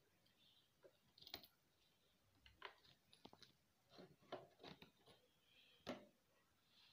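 Faint, irregular clicks and light knocks, about eight of them, as the painted rear board of a handmade model truck is handled and lifted off.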